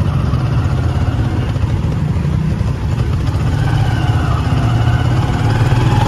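Vehicle engine running steadily on the move, with road noise.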